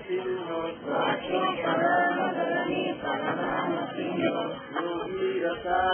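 Many voices chanting a prayer together in a steady sing-song recitation.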